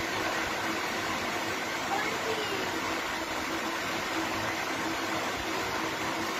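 Steady hiss and low hum of aquarium aeration, with air bubbles streaming up through the water.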